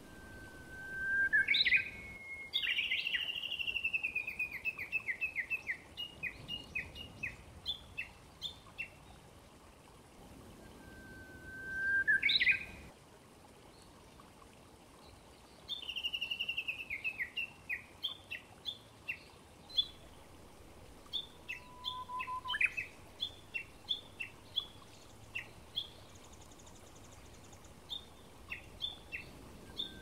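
Japanese bush warbler (uguisu) singing its 'hoo-hokekyo' song: a held whistle that breaks into a quick rising flourish, twice and again at the end. Between songs come long runs of rapid, repeated short chirps.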